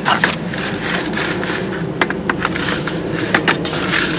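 Hand stirring dry granular fertilizer, a mix of organic fertilizer, Epsom salt and azomite rock dust, in a plastic bucket: gritty scraping and crunching with irregular clicks. A steady low hum runs underneath.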